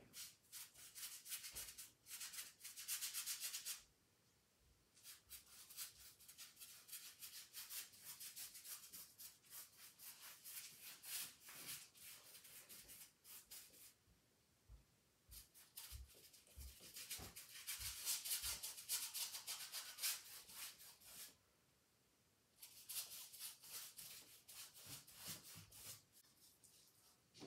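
Paintbrush scrubbing white paint onto canvas: runs of quick, scratchy bristle strokes a few seconds long, with short pauses between them.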